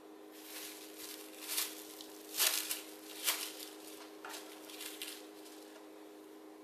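Plastic cling film crinkling and rustling in a series of short bursts as it is pulled out and spread over balls of bun dough, loudest about two and a half seconds in.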